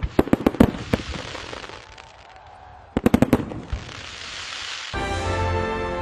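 Fireworks going off in quick volleys: a rapid string of sharp bangs at the start, and another short string about three seconds in. Music with sustained tones comes in about five seconds in.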